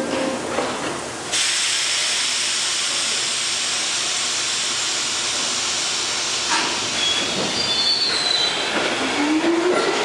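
R62 subway train pulling out of a station. A loud steady hiss starts suddenly about a second in, with brief high squeals a few seconds later. Near the end the whine of its General Electric 1257-E1 traction motors rises in pitch as the train speeds up.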